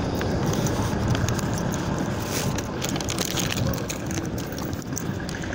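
Wind noise on a handheld phone's microphone, a steady rough rumble, with faint handling clicks as the phone is carried along.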